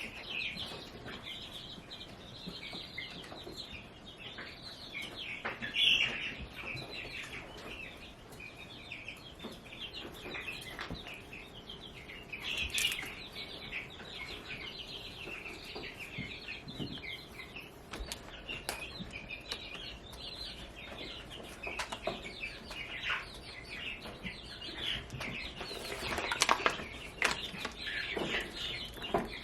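Baby chicks peeping continuously in a dense, high-pitched chorus, with a few scattered knocks and rustles.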